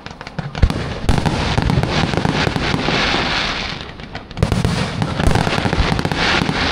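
Fireworks display: a dense crackle of many small pops over a few deep booms, swelling in two long waves, the first starting about a second in and the second about four and a half seconds in after a short lull.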